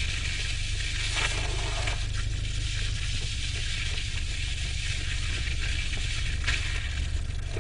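Steady wind rumble and hiss on the microphone outdoors, with a few brief scuffs of sneakers on the asphalt road.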